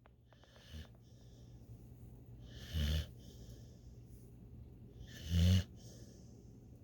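A sleeping puppy snoring: a faint snore about a second in, then two louder snores roughly two and a half seconds apart.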